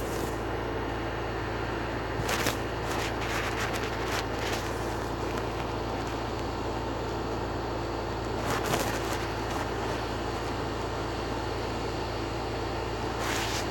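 Steady background hum and noise, with a few short clicks about two to four seconds in, again near nine seconds and near the end.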